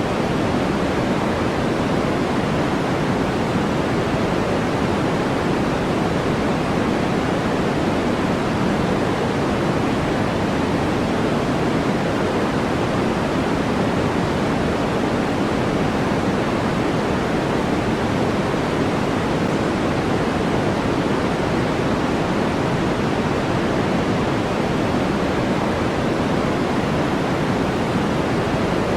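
Steady, unchanging synthetic noise track sold as white noise: a dense, even hiss weighted toward the lower pitches, with no breaks or changes.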